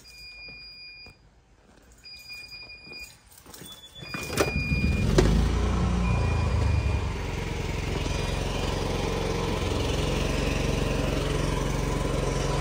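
An electronic beeper gives one-second beeps about every two seconds as the power goes out. About four seconds in, an automatic standby generator cranks and starts on its own, then runs steadily.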